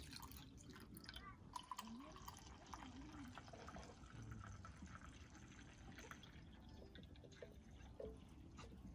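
Near silence with faint, scattered drips and small clicks.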